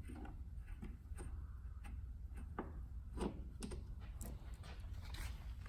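Scattered light clicks and ticks of hand tools and fasteners as the screws holding the snowmobile's tank shroud are worked loose.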